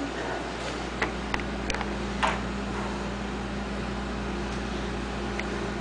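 A few light clicks and knocks of bottles being handled in an open refrigerator, about one to two and a half seconds in and once more near the end, over a steady low hum.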